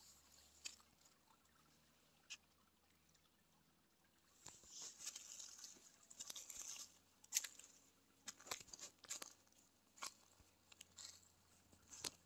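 Faint crunching and crackling of footsteps on dry leaf litter and dirt, with a patch of crackling in the middle and scattered sharp snaps and clicks after it.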